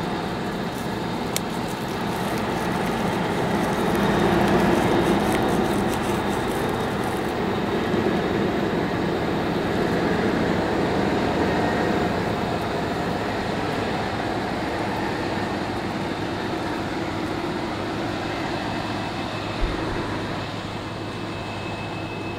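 A vehicle engine running steadily, a low mechanical drone that swells a little a few seconds in.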